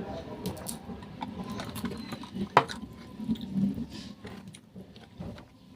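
Scattered light clicks and knocks of objects being handled, with one sharp knock about two and a half seconds in.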